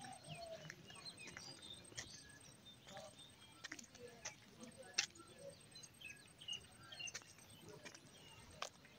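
Faint open-air ambience of small birds chirping and calling in many short notes, with a few sharp clicks, the loudest about five seconds in.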